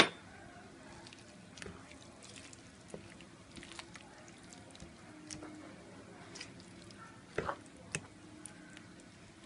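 A spatula stirring a watery, crumbly chana dal curry mixture in a pan: soft wet squishing with scattered light clicks of the spatula against the pan, and three sharper taps near the end.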